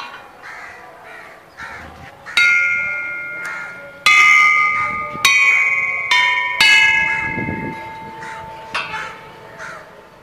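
Hanging metal musical pipes struck one after another, six strikes from about two seconds in. Each rings a different clear note that fades slowly.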